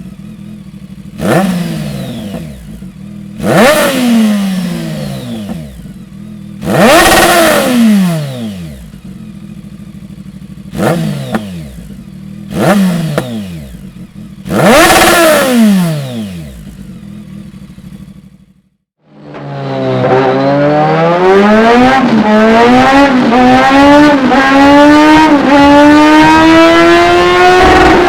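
BMW K1200R inline-four engine through a Dominator aftermarket silencer, idling and blipped six times, each rev rising sharply and falling back to idle. After a brief break it runs loud and steady under load, its pitch climbing slowly through the revs, as in a dyno pull.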